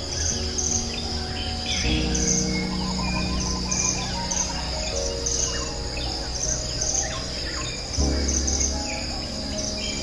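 Steady high cricket-like insect trill pulsing about once a second, with small birds chirping, over soft background music chords that change about two seconds in and again about eight seconds in.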